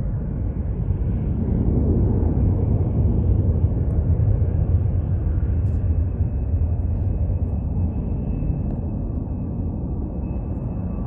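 Jet airliner climbing away after takeoff: a low, steady engine rumble that swells about two seconds in and slowly fades as the plane recedes. A faint, steady high whine comes in about halfway through.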